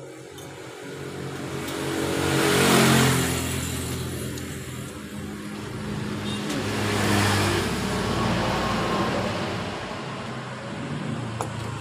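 Another motor vehicle's engine running nearby, swelling louder about three seconds in and again about seven seconds in.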